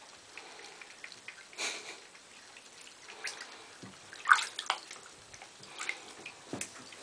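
Shallow bathwater in a tub being splashed and swished by a hand: several short splashes and drips, the loudest a little past halfway.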